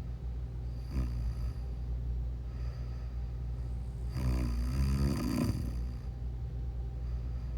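A sleeping person snoring: a brief snore about a second in, and one longer, louder snore from about four seconds in, over a steady low hum.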